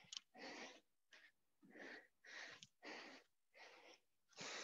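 Faint, quick heavy breathing, a short breath about every half second, from a person out of breath from exercise.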